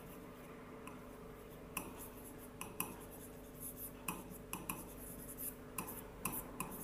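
Stylus tapping and scraping on the glass of an interactive display as a word is handwritten: a run of faint, irregular ticks, over a steady low hum.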